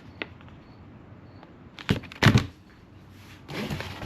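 Hands handling the mount kit's packaging and parts: a light click, two sharp knocks about two seconds in, then about a second of rustling near the end.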